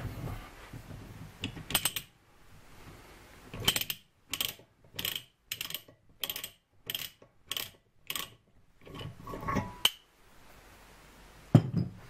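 Ratcheting die stock clicking as its die head is turned by hand to take it off a freshly cut half-inch BSP thread on an aluminium bar: a regular run of sharp metallic clicks, about two a second, for several seconds. A clunk near the end.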